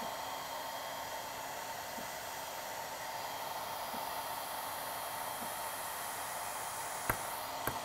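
Hand-held hair dryer running steadily, a constant even rush of blown air. There is a sharp click about seven seconds in.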